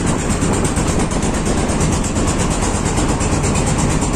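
Engine of a small river boat running steadily under way, with a rapid, even beat.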